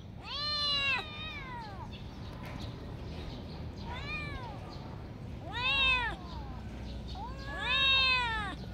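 Two kittens meowing repeatedly, each call rising and then falling in pitch, with two voices overlapping near the start and near the end.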